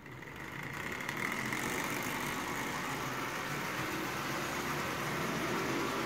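Marx Canadian Pacific toy locomotive's electric motor running and its train rolling on tinplate three-rail track, getting louder over the first second or so as it gets going, then steady with a faint whine.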